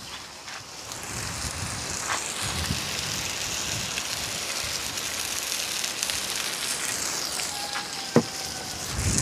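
Sliced onions sizzling in a hot frying pan as they caramelize: a steady frying hiss with a couple of sharp pops.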